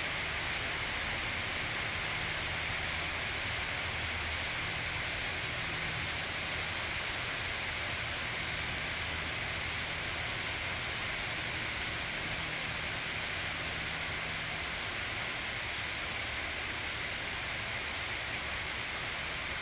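A rain shower falling steadily on leafy trees and lawn, an even, unbroken hiss.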